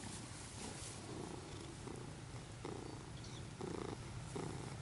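Domestic tabby cat purring steadily while its cheeks are rubbed.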